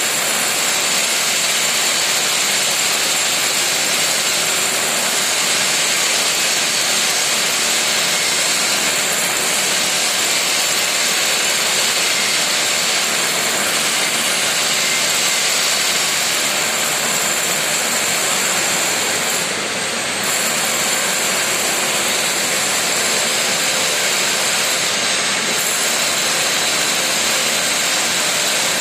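Plasma cutting torch of a CNC beam-cutting machine hissing steadily as it cuts steel, with a short dip about twenty seconds in.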